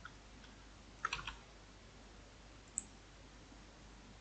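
Faint computer mouse clicks: a quick run of clicks about a second in and a single sharp click near the end, over a quiet room.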